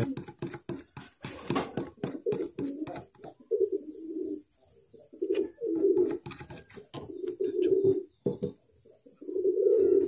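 A bird cooing in repeated low phrases, over the clicks and scrapes of a metal spoon stirring a thick mixture in a plastic bowl.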